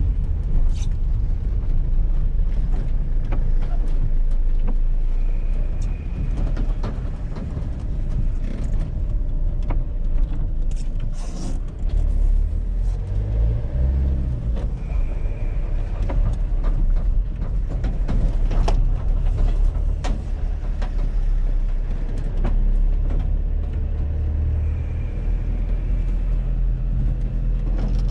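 Small van driving along: a steady low rumble of engine and road noise, with frequent light knocks and rattles.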